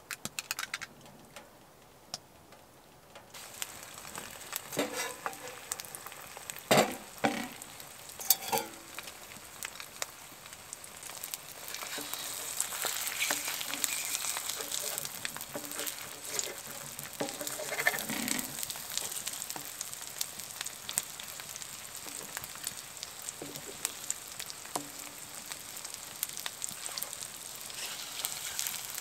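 Food sizzling in a frying pan on a wood stove, with a few sharp knocks of a utensil against the pan. The sizzle starts a few seconds in and gets louder about twelve seconds in.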